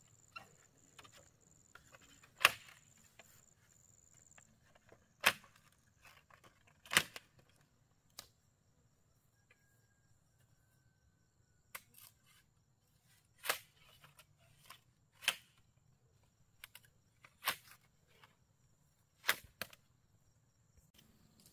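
Sharp knocks of a blade chopping at bamboo poles, about ten strikes at uneven spacing with a pause in the middle. A faint steady high-pitched insect buzz fades out about four seconds in.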